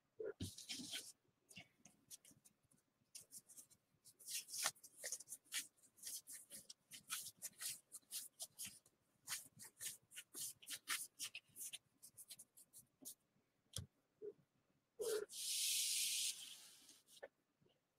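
Gypsy Queen baseball cards being thumbed through and flicked one after another by hand, a run of quick papery swishes and ticks, with a longer sliding swish about fifteen seconds in.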